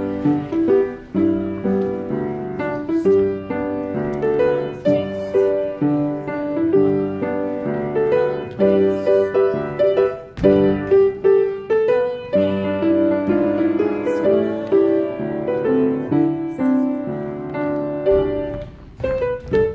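Piano playing a show tune as accompaniment for a stage dance number, a steady run of notes throughout.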